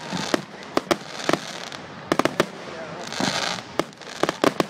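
Aerial fireworks going off: a rapid run of sharp cracks and bangs in clusters, with crackling hiss between them, distorted on a phone microphone.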